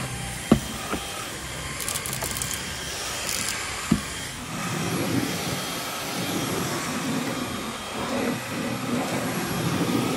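Cordless stick vacuum cleaner running steadily, with a few knocks and two brief crackling rattles in the first four seconds. From about four seconds in, as it sweeps along the hard floor, its sound gets louder and deeper.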